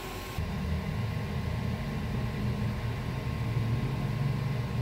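Steady low hum and whir of the Tesla Model S's cooling and climate fans running in the cabin during high-power Supercharging, with a faint steady high whine. It begins a moment in.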